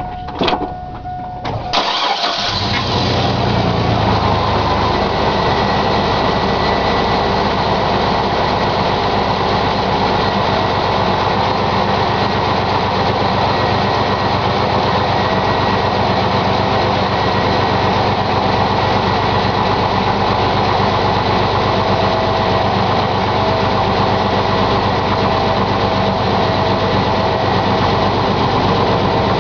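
1999 Chevrolet S-10 ZR2's 4.3-litre V6 started from cold: a few clicks, the engine catches about two seconds in, then runs steadily at idle. The owner records it for the engine knock it makes on a cold start.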